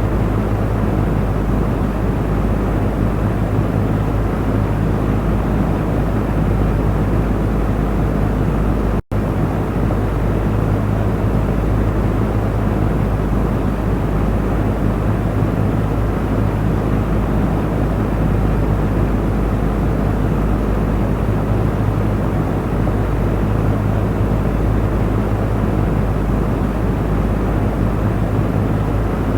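Electric fan running steadily: an even rush of moving air over a low motor hum. The sound drops out for an instant about nine seconds in.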